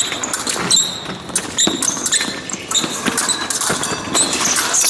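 Fencers' shoes squeaking and feet stamping on the piste during an épée bout, in short scattered squeaks and sharp knocks.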